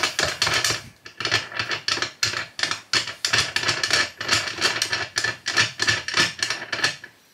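Quick metallic clicking and scraping, several clicks a second, as a steel 8 mm bolt is screwed into a broken-off brass case neck stuck inside a full-length sizing die. The clicking stops shortly before the end.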